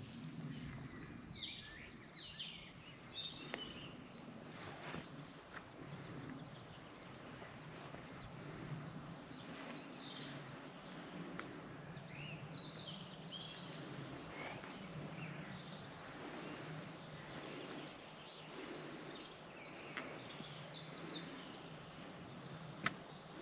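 Several birds calling over faint steady outdoor background noise, one of them repeating quick runs of short high chirps every few seconds. A single sharp tick near the end.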